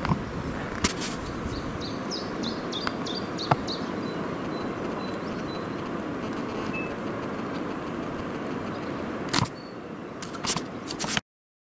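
Outdoor field ambience: a steady rush of noise, with a quick run of short high chirps a couple of seconds in and a few sharp handling clicks. The sound drops after a loud click near the end and then cuts off suddenly.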